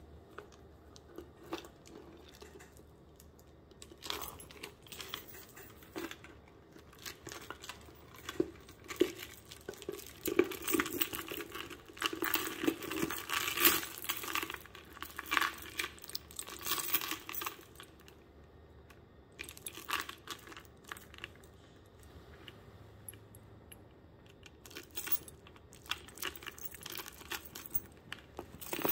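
A Kurt Geiger Kensington transparent PVC crossbody bag being handled: stiff clear plastic crinkling and rustling, with light clinks from the metal chain strap. The noises come in irregular bursts, sparse at first, busiest in the middle, with another run near the end.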